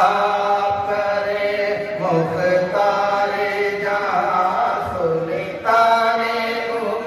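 Men's voices chanting a naat, an Urdu devotional poem, unaccompanied, in long held phrases with short breaks between them.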